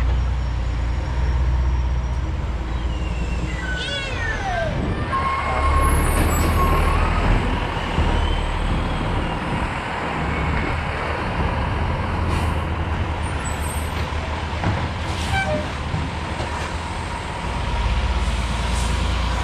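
Garbage truck engine running steadily as the truck drives, with a brief squeal sliding down in pitch about four seconds in.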